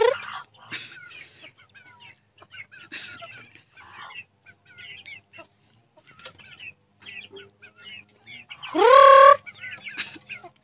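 Chickens calling: scattered short high chirps and clucks throughout, a loud rising call right at the start, and a longer loud call about nine seconds in that rises and then holds its pitch.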